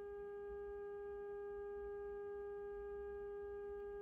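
A steady, unchanging test tone from the speaker of a 1946-47 Northern Electric Model 5000 tube radio. It is the signal generator's tone passing through the set while its IF transformer slugs are being tuned for a peak output.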